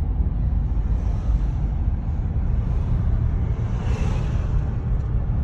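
Road and engine noise inside a moving car: a steady low rumble, with a brief swell of hiss about four seconds in.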